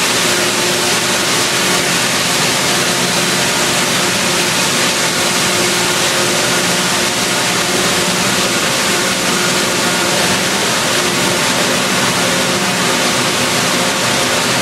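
Plastic sheet extrusion line running: a steady, loud machinery noise with several faint steady hum tones in it.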